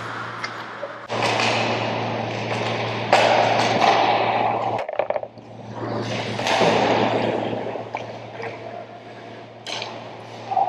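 Ice hockey play close to the net: skate blades scraping and carving the ice, with sharp clicks and knocks of sticks, puck and boards, over a steady low hum. The sound drops out briefly about halfway through.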